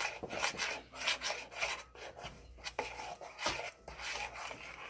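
A utensil scraping and stirring a thick homemade play-doh mixture in a pot, in irregular strokes a few times a second. The dough is still thickening toward the right consistency.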